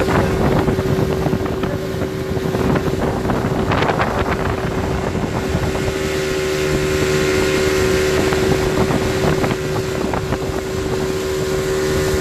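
Speedboat engine running at a steady pitch while under way, with wind buffeting the microphone.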